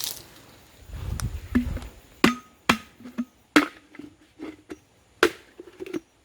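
An irregular series of about six sharp chopping or knocking strikes, each with a brief ring, and a low rumble about a second in.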